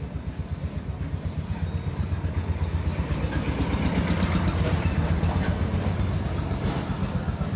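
A motor vehicle's engine running close by: a low, fast-pulsing rumble that swells louder about halfway through and eases off again. A few light clicks come near the end.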